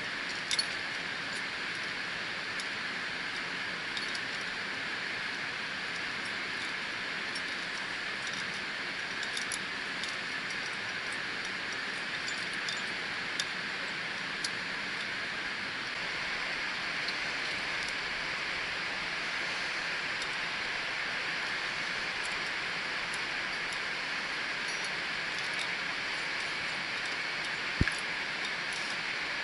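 Light metallic clinks from a climber's carabiners and quickdraws on the harness, a few at a time, with a sharper knock near the end, over a steady hiss.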